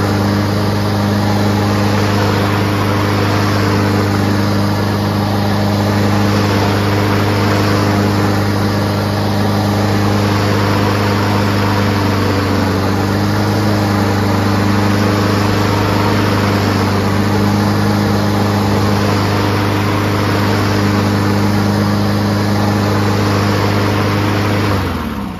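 Honda GCV160 single-cylinder mower engine running steadily at speed, loud and even. Just before the end it is shut off and the pitch drops as it winds down to a stop.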